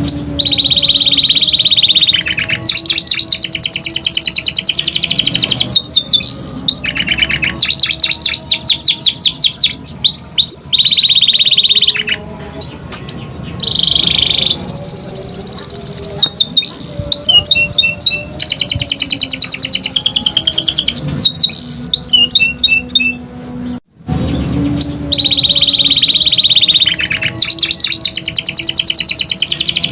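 Domestic canary singing a long, loud song of buzzing trills, fast rolled repeated notes and short rising whistles, in phrases broken by short pauses. The sound cuts out suddenly for a moment late on.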